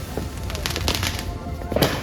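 Fireworks going off in a rapid run of bangs and crackles, the loudest bang near the end, over background music.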